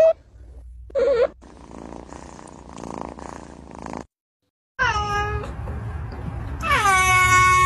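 Cats meowing: a short wavering mew from a kitten about a second in, then, after a brief gap, a falling meow and a long drawn-out meow from a grown cat that begins near the end.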